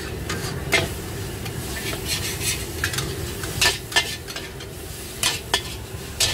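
A long-handled metal spatula scraping and clanking irregularly against a large black wok as noodles are stir-fried, over a steady sizzle. The sharpest clanks come about a second in and twice around the middle.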